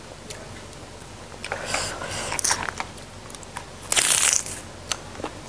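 Crisp crunching and tearing of a raw lamtoro (pete cina) pod being split and bitten, in a few short bursts, the loudest about four seconds in.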